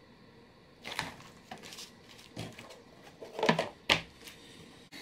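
Stiff leather bag pieces being handled on a wooden workbench: scattered rustles and light knocks as the leather is shifted and pressed flat, with one sharp tap about four seconds in.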